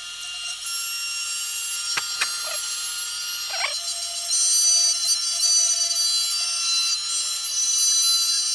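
CNC3040 engraver's spindle running at full speed with a high-pitched whine as the bit routes a profile through plywood. There are a couple of sharp clicks about two seconds in, and the cutting grows louder from about four seconds in.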